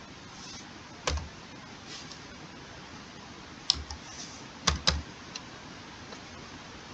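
Computer keyboard keys being pressed a few times, scattered single keystrokes rather than steady typing: one about a second in, then three more close together near the middle, over a faint steady hiss.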